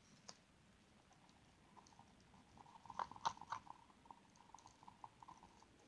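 Faint sticky clicks and crackles of slime being handled, with a cluster of sharper clicks about three seconds in.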